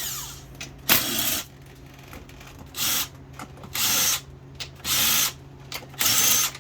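Handheld power ratchet or impact gun run in short bursts about a second apart, spinning out the bolts holding a transmission valve body together.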